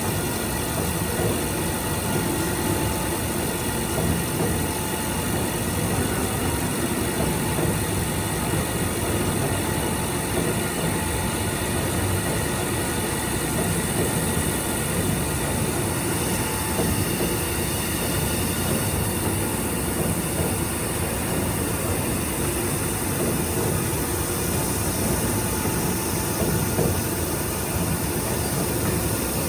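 Milling machine cutting an A2 tool steel plate, a steady, unbroken machining noise with faint steady tones in it.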